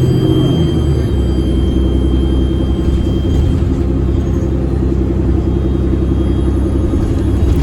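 Loud, steady low hum and rumble inside a Nova LFS city bus, a drone of several low tones with a slight pulsing. It is the unusual loud sound the rider cannot identify.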